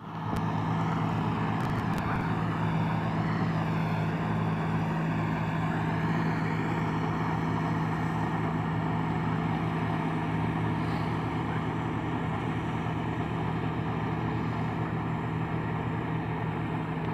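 Diesel engine of a farm tractor running steadily as it works across a flooded rice paddy, a constant low hum with a haze of noise over it.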